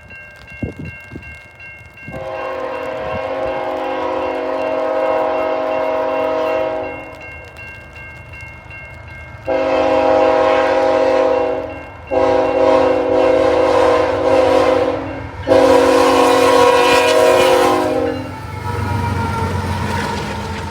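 Freight locomotive's multi-note air horn sounding four blasts: a long one of about five seconds, then three more of two to three seconds each in close succession. The train's rumble is heard under the horn and comes up after the last blast.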